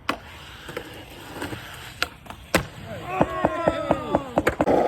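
Skateboard rolling on pavement, with sharp clacks every second or two and a rolling rumble that grows louder near the end. A pitched sound slides down in pitch shortly before the end.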